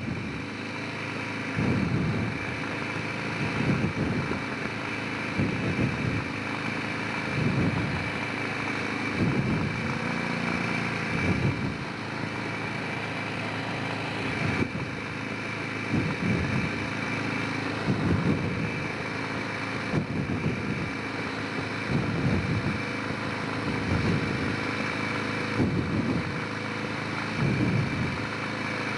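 Honda Rincon 650 quad's single-cylinder engine running while riding, with low surges about every two seconds and a steady high tone above the hum.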